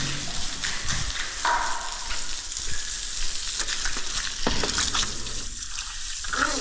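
Water spraying and splashing onto a dog and the ground in a steady hiss.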